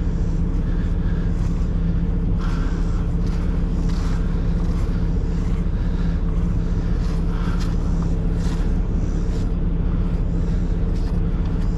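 Diesel semi-truck engine idling steadily, with a few light clanks from valves being worked on the tank trailer.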